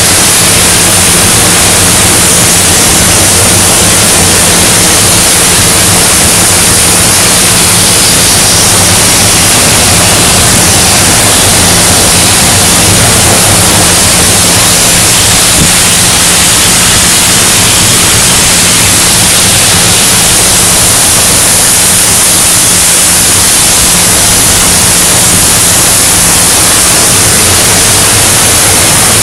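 CNC profile cutting torch cutting steel plate: a loud, steady hiss with a steady low hum underneath.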